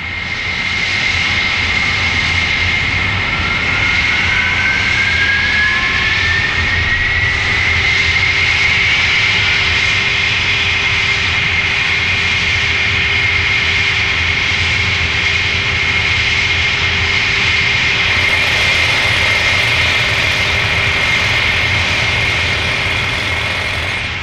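Loud, steady engine-like roar with a high whine held throughout; a second whine rises in pitch over the first several seconds to join it.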